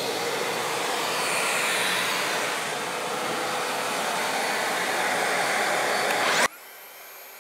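DeWalt DCS520 60V FlexVolt cordless track saw spinning up with a rising whine, then running steadily as it is pushed along its guide rail, trimming about a blade width off a door edge. The sound cuts off suddenly near the end.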